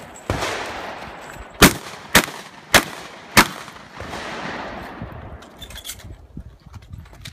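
Shotgun blasts at a practical shooting stage: one shot just after the start, then four quick loud shots about half a second apart. Lighter clicks and handling noise follow.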